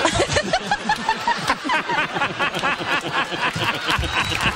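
Studio audience laughing and clapping at a punchline, a dense mix of many voices laughing over sharp hand claps.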